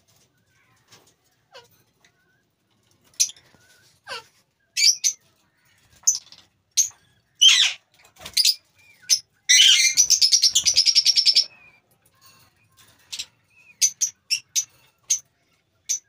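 Caged lovebirds calling: scattered shrill chirps and squeaks, with a fast rattling chatter of about eight notes a second for two seconds around the middle.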